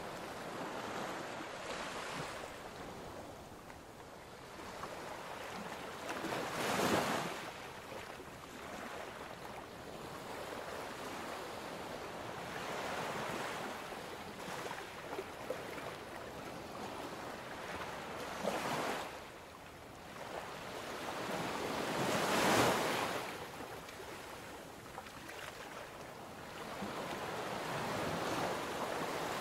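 Ocean waves washing on a shore: a continuous surf hiss that swells and ebbs, with louder surges about a quarter of the way in and again about three quarters through.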